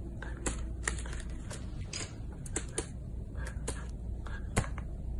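A puppy's paws pressing and tapping a laptop keyboard: irregular key clicks, with one louder tap near the end.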